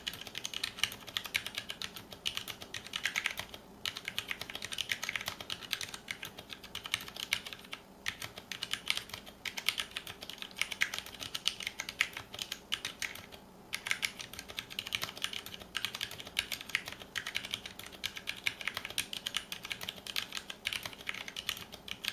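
Fast continuous typing on a mechanical keyboard with Cherry MX Brown switches, thin ABS keycaps, a stainless steel plate and an aluminum case: a steady run of key clicks, broken by brief pauses about four, eight and thirteen seconds in, and stopping at the very end.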